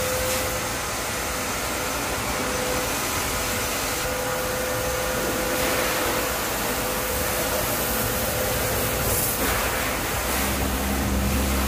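Steady whooshing machine noise with a faint constant whine from shop machinery. A deeper hum comes in near the end.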